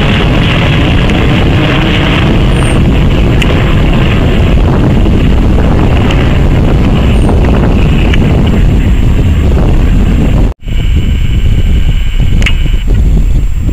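Boeing 737-800 jet engines, loud and close, as the airliner passes overhead, with wind on the microphone. About ten seconds in this cuts to a distant CRJ-900 regional jet, a thinner engine noise with a steady high whine.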